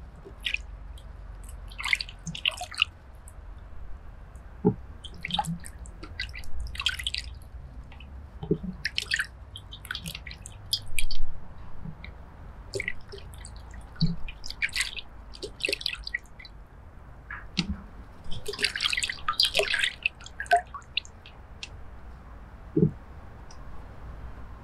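Potatoes lifted out of a bowl of water and set down on a wooden cutting board: water dripping and splashing in short bursts, with soft knocks of the potatoes on the wood.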